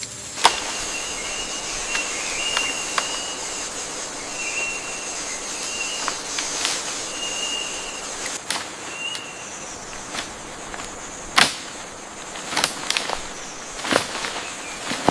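Rainforest ambience: a steady high insect buzz, with short high whistle-like calls repeating over the first half and a scattering of sharp snaps or knocks, the loudest about eleven seconds in.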